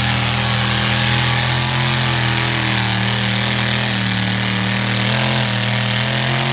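Pulling tractor's engine running flat out under load as it drags a weight-transfer sled, its revs held at a steady pitch with a slight waver partway through. The sound cuts off suddenly near the end.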